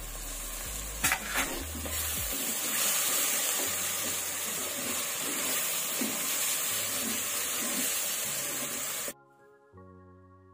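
Masala with boiled eggs and cashew-coconut paste frying and sizzling in a pressure cooker as it is stirred with a spatula, with a couple of scrapes about a second in. Near the end the sizzling cuts off suddenly and faint background music plays.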